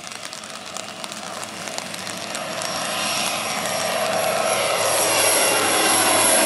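Cessna 208 Caravan's single turboprop engine at takeoff power, growing steadily louder as the plane climbs toward and over the listener, with a high turbine whine coming up over the propeller noise from about halfway through.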